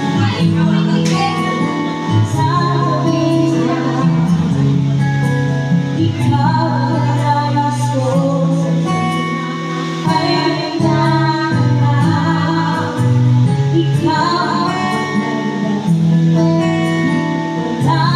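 A woman singing into a microphone over backing music with a steady bass line, her held notes wavering in pitch.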